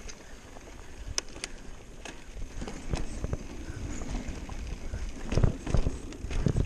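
Mountain bike tyres rumbling on a dirt trail, then rolling across a wooden plank bridge, thudding over the slats while the bike rattles and clicks. The knocks grow louder from about halfway, and the strongest come near the end.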